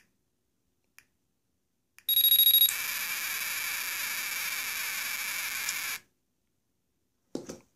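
Game Timer Pro's electronic detonation alarm going off as the countdown reaches zero: a sharp, high beep for about half a second, then a steady harsh buzzing tone for about three seconds that cuts off suddenly. Two faint ticks a second apart come before it as the last seconds count down.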